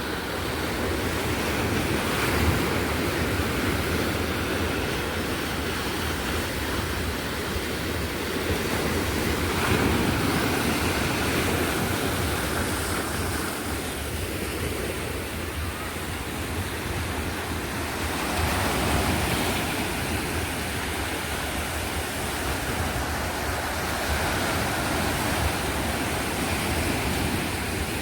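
Sea surf washing on the shore, a steady rush of water that swells and eases every several seconds as waves come in.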